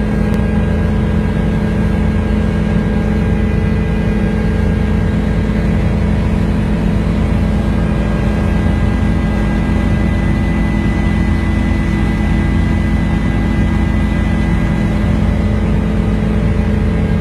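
Aircraft engine drone heard from inside the cabin: a loud, steady hum with several held tones that does not change in pitch.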